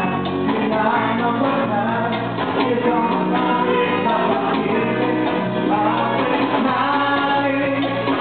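Live band playing a song with a singer, over a steady bass line and beat.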